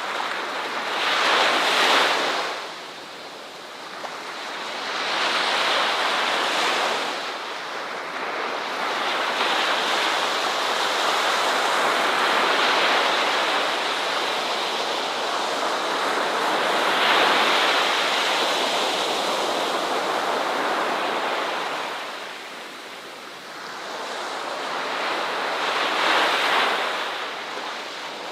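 Ocean waves breaking and washing on a beach, the surf swelling and ebbing every few seconds with a longer sustained wash through the middle.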